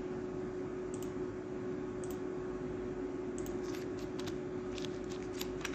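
Computer mouse clicks, single and in quick pairs, scattered mostly through the second half, over a steady hum and hiss.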